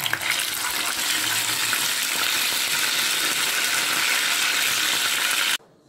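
A piece of spice-braised chicken frying in hot oil in a frying pan: a loud, steady sizzle with fine crackling, cutting off abruptly near the end.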